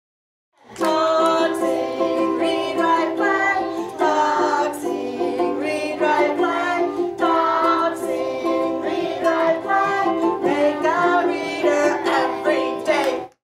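Intro theme music with plucked strings and a gliding melody line over held chords; it starts about half a second in and stops just before the end.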